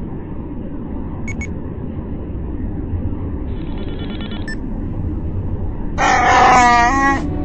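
Low steady spaceship cockpit hum with short electronic beeps and a burst of computer chirping. About six seconds in, a Wookiee growls loudly for just over a second, its pitch wavering and dropping.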